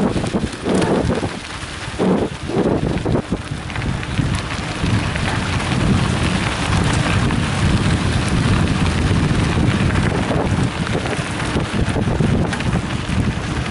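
Wind buffeting a bike-mounted camera's microphone, over mountain bike tyres rolling on a gravel road: a steady rough rush. It comes in uneven gusts at first and settles into a fuller, steadier noise about four seconds in.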